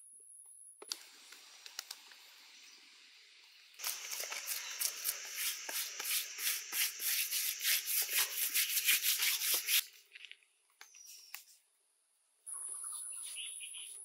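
A hand rubbing and smoothing wet mud plaster, a rapid run of scraping strokes that starts about four seconds in and stops about ten seconds in. A steady high insect drone comes in near the end.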